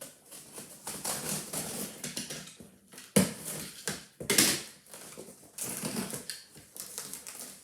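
Packages being handled: crinkling and rustling of mailer bags and boxes, with two sharper knocks about three and four and a half seconds in.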